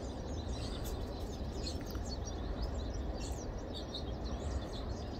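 Small birds chirping and twittering in many quick, short, overlapping notes over a steady low background rumble.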